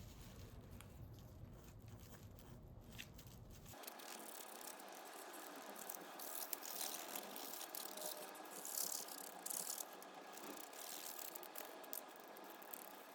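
Plastic parts of a vacuum cleaner being handled for cleaning, rattling and clicking. About four seconds in the sound changes abruptly to a brighter hiss of rustling and scraping, with louder stretches in the middle.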